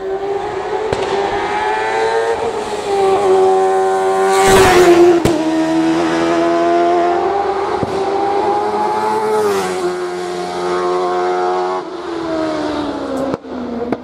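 Racing car engine revving high as it drives up a hillclimb course, its pitch climbing and dipping several times as the driver changes gear and lifts, loudest about four and a half seconds in.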